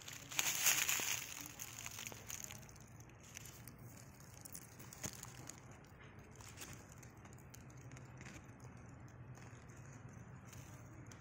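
Dry leaves rustling and crackling, loudest in a burst about half a second in that fades by a second and a half, then scattered small crackles over a steady low hum.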